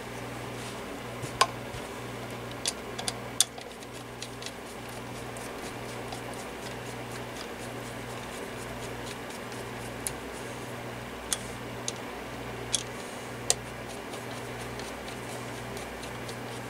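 Small parts of a partly disassembled oscillating fan being handled and fitted back together: about nine sharp clicks and taps, scattered and irregular, over a steady low hum that pulses about once a second.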